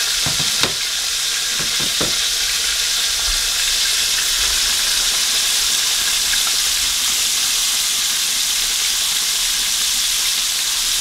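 Buttermilk-battered chicken pieces deep-frying in hot oil in a Dutch pot, a steady sizzle, with a few light clicks in the first two seconds.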